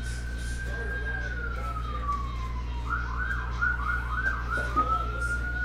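Emergency vehicle siren: a slow wail that rises, holds and falls, switches to a run of fast yelping sweeps about three seconds in, then goes back to the wail.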